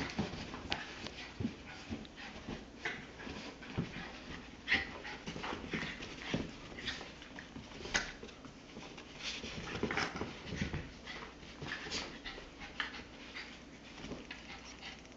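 A basenji puppy and a Shih Tzu–Yorkie mix play-fighting: a rapid string of short dog vocal sounds with panting, mixed with scuffling of the wrestling dogs.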